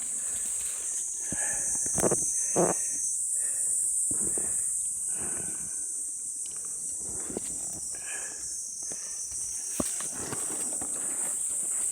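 Digging in soil with a hand tool to unearth a wild balloon flower root: irregular scrapes and knocks, a few seconds apart, over a steady high drone of insects.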